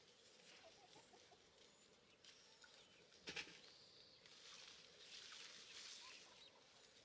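Near silence: a faint rustle of cherry tree leaves and branches being handled during picking, with one sharp snap a little over three seconds in.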